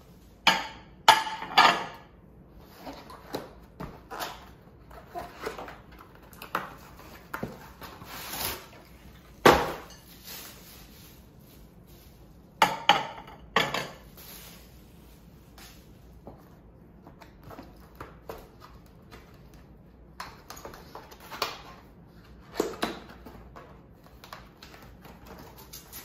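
Ceramic plates clinking and being set down on a marble tabletop while being unpacked, with rustling of bubble wrap and cardboard boxes. Sharp clinks come in a cluster near the start, once around ten seconds in and twice around thirteen seconds, over a faint steady air-conditioner hum.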